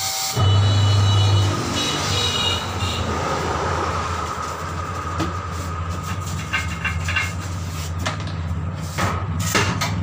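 CXR-503+ tyre changer's electric turntable motor humming as it turns the tyre. It starts about half a second in, is loudest for the first second, then runs on steadily while the tyre is worked by hand. A few sharp metal clanks come near the end.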